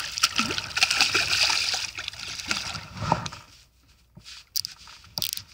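Water splashing at the surface beside a boat as a freshly hooked pike thrashes while it is being landed, for about three seconds. It then goes quieter, with a few light knocks near the end.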